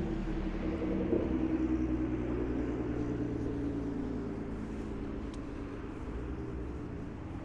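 Road traffic: a motor vehicle's engine humming as it passes close by, loudest a second or two in, then dropping slightly in pitch and fading.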